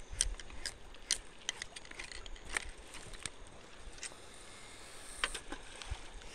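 Irregular light clicks and small knocks from a fishing rod and baitcaster reel being handled, over a faint low rumble of handling noise.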